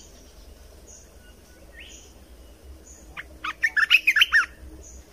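A bulbul giving a brief burst of quick, varied chirping notes about three seconds in, after a single faint rising note. A faint short high pulse repeats about once a second behind it.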